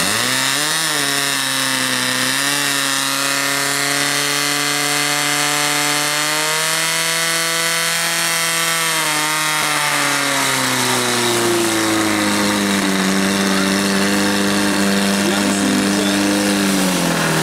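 Portable fire pump's engine running at high revs, pumping water out through the attack hoses. Its note steps up shortly after the start, climbs a little further midway, then falls to a lower steady pitch about two-thirds through.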